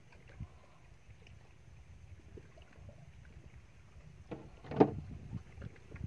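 Faint water lapping against a small outrigger boat riding at sea, with a few short knocks, the loudest about two-thirds of the way through.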